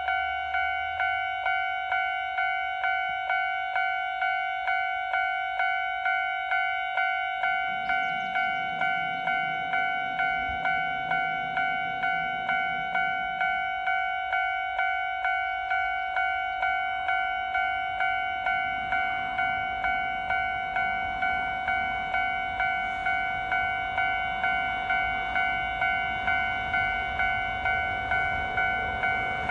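Japanese level-crossing warning bell ringing, a bright ding struck about twice a second. In the second half a low rumble grows as a KiHa 150 diesel railcar approaches the crossing.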